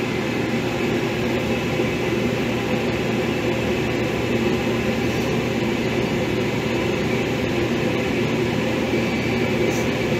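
Steady drone of a commercial kitchen exhaust hood and ventilation fan, a constant rushing noise with a low hum.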